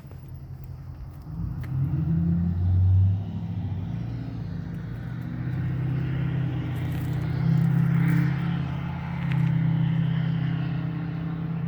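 A vehicle engine running steadily, getting louder about a second in, then swelling and easing a few times.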